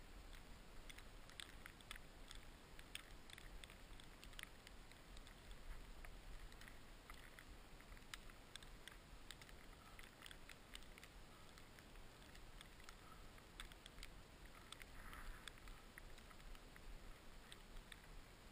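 Near silence: a faint hiss with scattered soft, irregular ticks and clicks, the muffled sound of skiing slowly through deep powder snow.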